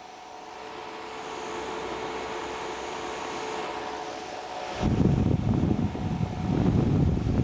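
DK-5298 rechargeable portable fan running, a steady whirring hiss with a faint hum. From about five seconds in, loud, uneven low rumbling of air buffeting the microphone takes over.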